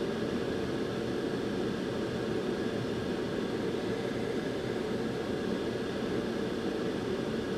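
Hot-air rework station blowing steadily onto a GPU memory chip, a continuous rushing of air with a faint fan hum, reflowing the new solder balls during reballing.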